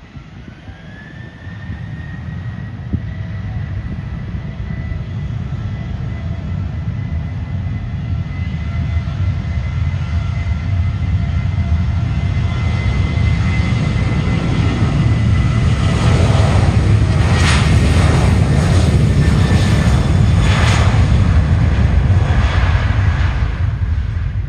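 Boeing 737-800 freighter's CFM56-7B turbofan engines spooling up for takeoff. A whine rises in pitch over the first second or two and then holds steady. Under it a low rumble grows steadily louder as the jet accelerates down the runway and passes, loudest near the end.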